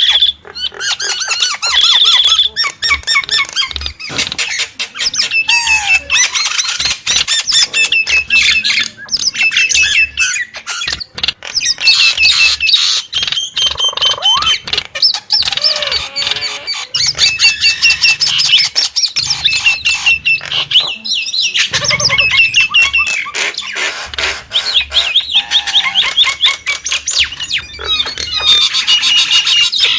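Nias hill myna calling without pause: a fast, loud stream of short whistles, squawks and chatter, with many sharp clicks between the notes.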